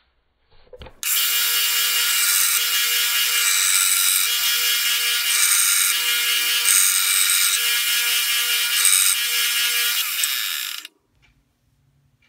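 Small Central Machinery bench belt sander running, with the tape-wrapped steel ball peen hammer head held against the belt to grind it down. There is a steady motor whine under the hiss of the belt. It starts about a second in and cuts off near the end.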